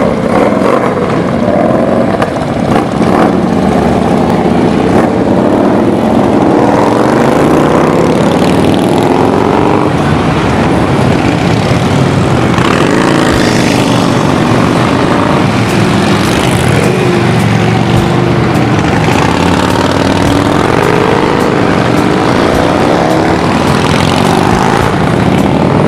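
A procession of large touring motorcycles riding past one after another at low speed, their engines running loudly. The engine pitch rises and falls repeatedly as each bike accelerates away and goes by.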